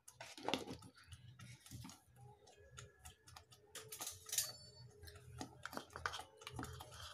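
Thick ground masala paste frying in oil in a pan on a medium flame, sputtering with faint irregular pops and crackles.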